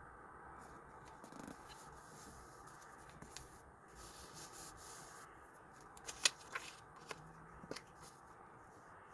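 Sticker sheets and paper being handled close up: a soft rustling for a few seconds, then several light, sharp clicks or taps, the loudest about six seconds in.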